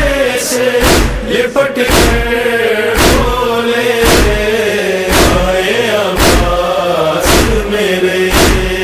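Devotional chanting, a melodic voice line with accompanying voices, set to a heavy beat that strikes about once a second.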